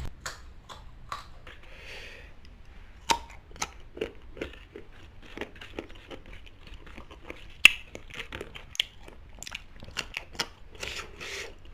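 Close-up crunching and chewing of young, unripe green mango, with irregular sharp crunches, the loudest about three seconds in and just before eight seconds.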